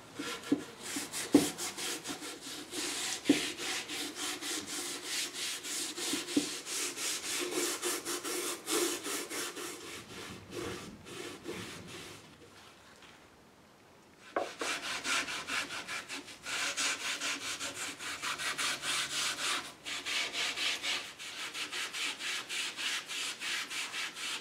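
Gray Scotch-Brite pad scrubbing the wet finish of an oak chair in quick, even back-and-forth strokes, with a couple of sharp knocks against the wood in the first few seconds. The scrubbing stops for about two seconds near the middle, then starts again with a knock.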